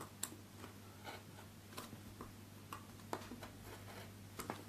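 Craft knife blade cutting through extra thick card on a cutting mat, a second pass along the outline: faint, irregular scratches and small ticks.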